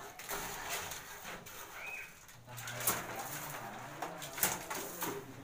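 Wet cement mortar scooped by hand from a plastic bucket and flung onto a lightweight aerated-concrete block wall as a spatter coat, giving a few sharp slaps. A bird cooing low in the background from about halfway through.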